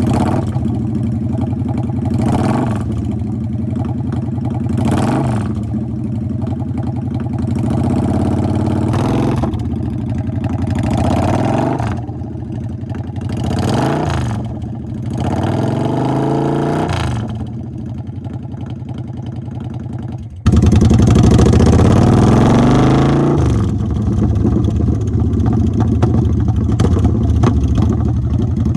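A 2007 Kawasaki VN900 Custom's V-twin runs through a full Vance & Hines aftermarket exhaust. It idles between about six quick throttle blips over the first 17 seconds. About 20 seconds in it turns suddenly louder, revs once more and settles back to a steady idle.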